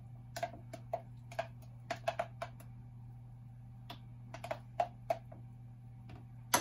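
A spoon taps and scrapes against a plastic blender cup and glass jar as frozen blue curaçao slush is scooped out onto a layered drink: light, irregular clicks, some in quick runs, over a steady low hum.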